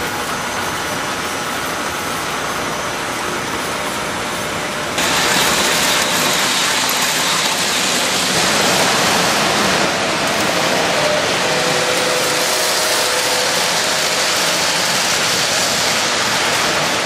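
Electric toy trains running on metal track: a steady rolling rumble of wheels and motors. It gets louder suddenly about five seconds in, as a train passes close.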